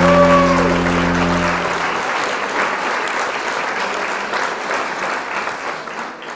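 A song ends on a held chord with a last sung note falling away. About a second and a half in, the music stops and applause carries on alone, slowly fading out.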